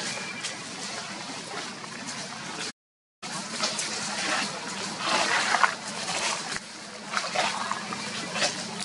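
Macaques scuffling through dry leaf litter: irregular rustling and crackling that grows louder after a brief drop to silence about three seconds in.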